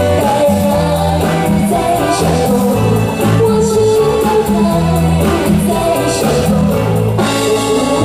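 A woman singing a pop ballad into a microphone over a live band, with bass and drum-kit hits under sustained chords.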